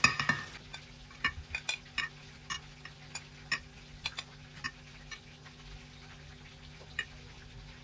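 Metal tongs clinking against a glass baking dish and a ceramic plate as fried cauliflower florets are lifted out and set down: a run of light clicks that thins out after about five seconds, over a faint steady hum.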